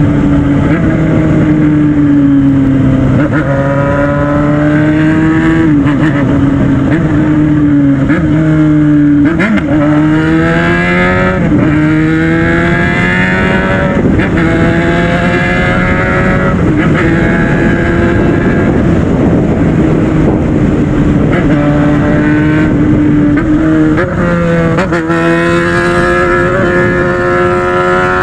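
Yamaha FZ6 Fazer 600's inline-four engine running loud while the bike is ridden. Its pitch climbs and drops back sharply several times as it accelerates and shifts gear, a drone the owner likens to a helicopter.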